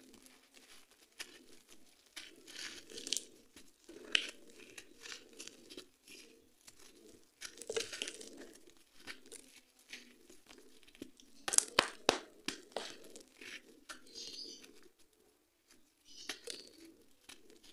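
Dry, gritty sand-cement lumps and gravel crunching and crumbling as bare hands scoop, squeeze and break them, with grains trickling down. The crunching comes in irregular handfuls, with a cluster of sharp cracks about two-thirds of the way through and a brief lull after it.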